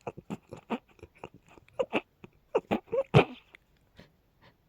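A woman's rapid fit of short, small sneezes following one another every few tenths of a second, the loudest just after three seconds in; a pollen allergy is the cause.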